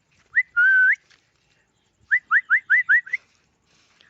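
Clear, high whistled notes: a short upward note, then a longer held note that sweeps up at its end, then, about two seconds in, a run of six quick upward chirps.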